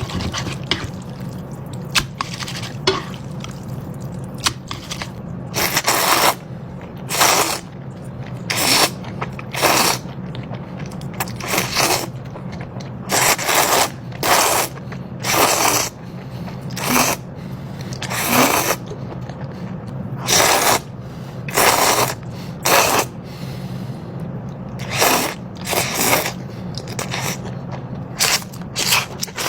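Ramen noodles being slurped and chewed close to the microphone: short noisy slurps every second or two, with softer chewing between them, over a steady low hum.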